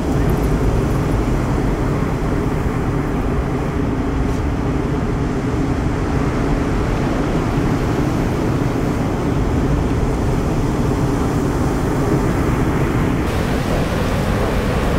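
Steady roar of heavy surf breaking on the shore, a dense low rumble with hiss on top that grows brighter near the end.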